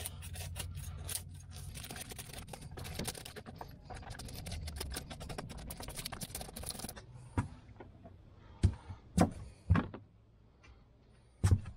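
Knife blade scraping the scales off a gutted fish on a plastic plate: rapid, repeated scrapes for about seven seconds. Then a few separate knocks.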